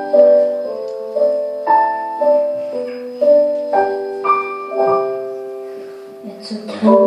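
Slow piano backing-track intro: chords struck about twice a second, each note ringing and dying away, easing off near the end, followed by a short breathy noise just before the vocal comes in.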